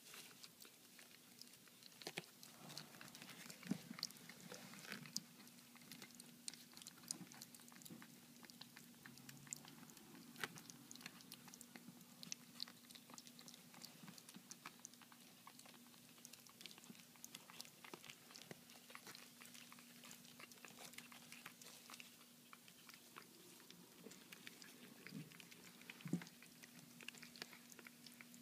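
Chihuahua puppies eating soft mash from a tray: faint, irregular little clicks of lapping and chewing, with a thin steady hum underneath.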